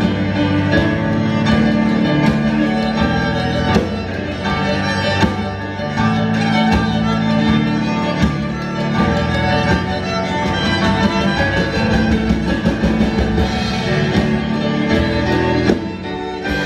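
A live band playing: a fiddle carries the tune over keyboard and drums, with the drum strikes keeping a steady beat.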